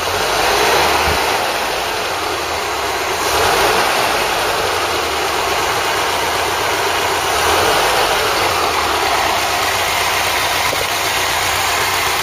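Freshly rebuilt Ford 2.0 Pinto four-cylinder engine running and revved to check its oil pressure. The revs rise and ease back three times.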